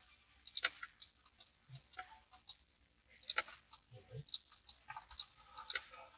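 Scattered computer mouse clicks, irregular and faint, with a sharper pair about half a second in and about three and a half seconds in.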